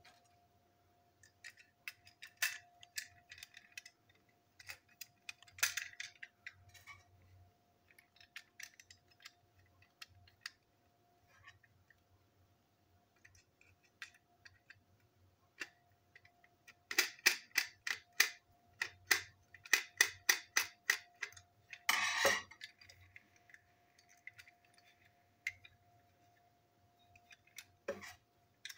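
Small clicks and taps of a screwdriver and hard plastic parts as a model train passenger coach is taken apart by hand: scattered clicks, a quick run of sharp clicks past halfway, then a short scrape.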